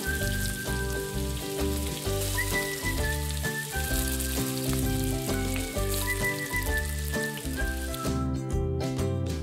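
Macaroni, chicken and shredded vegetables sizzling in a hot pan as they are stir-fried, over background music with a high melody line. The sizzle stops about eight seconds in while the music carries on.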